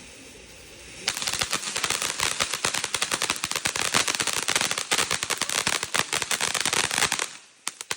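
A string of firecrackers going off: after a steady hiss for about a second, dense rapid cracks go on for about six seconds, then trail off into a few last scattered pops.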